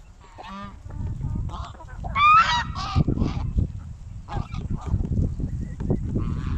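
Geese honking, a string of calls with the loudest about two seconds in, over a steady low rumble.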